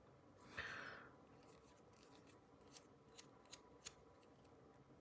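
Faint close-up handling of a small cleaning tool on the parts of a disassembled folding knife while the detent hole is cleaned: a brief scrape about half a second in, then a few light ticks.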